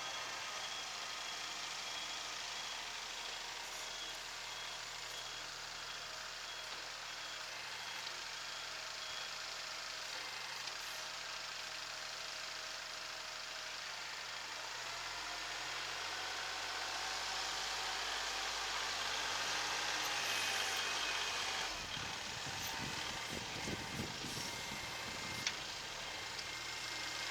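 Kubota SL28H diesel tractor running under work, with an electronic back-up buzzer beeping in an even, rapid series for about the first ten seconds, the mark of the tractor reversing. The engine noise swells in the second half, and a few sharp knocks come near the end.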